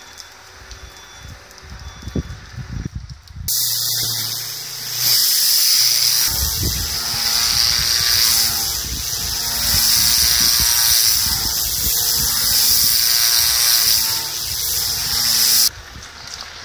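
Pressure washer lance blasting a jet of water against the underside of a sailboat hull, cleaning the hull bottom. It gives a loud steady hiss that starts suddenly about three and a half seconds in and cuts off shortly before the end. Before it there are a few quieter low thumps.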